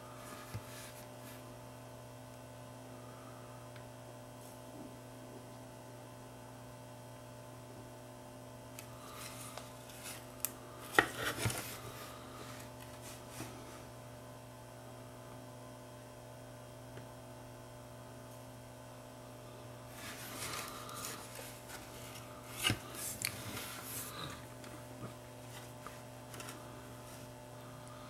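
Steady electrical mains hum, with two spells of small clicks and scrapes, about ten seconds in and again about twenty seconds in, from soldering tools working on a surface-mount circuit board.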